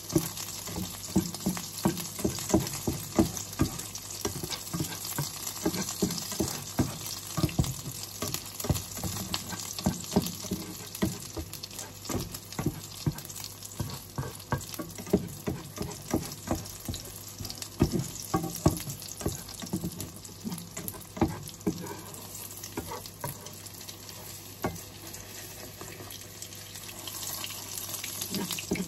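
Tortang okra, okra pieces coated in beaten egg, frying in hot oil in a pan with a steady sizzle. Frequent irregular knocks and scrapes of a utensil against the pan run through it, thinning out in the last part.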